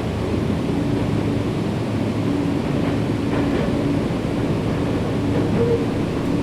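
Nankai 7100-series electric train running at speed, heard from inside the passenger car: steady rolling noise from wheels on rails with a low, even hum.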